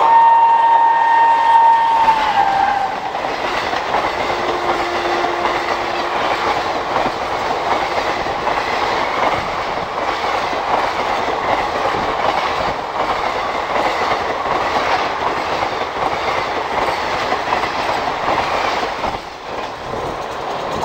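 An Indian Railways WAP-4 electric locomotive sounds a long horn note that sags in pitch near its end as it approaches at speed. Its express coaches then rush past with a steady roar and rhythmic clickety-clack of wheels over rail joints, easing off near the end.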